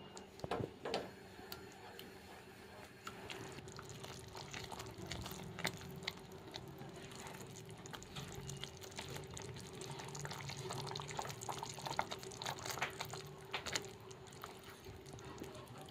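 Creamy gravy cooking in oil in a pan, bubbling and spluttering with many small pops and clicks as it is stirred with a spatula, busier after the first few seconds.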